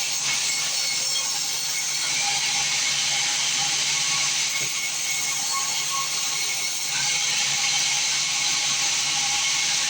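Sawmill band saw running with a steady hissing noise and a faint constant hum.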